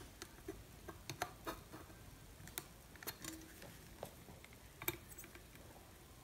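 Faint, irregular small clicks and crackles as a soldering iron solders a wire onto a fuse holder terminal, with a slightly louder click about five seconds in.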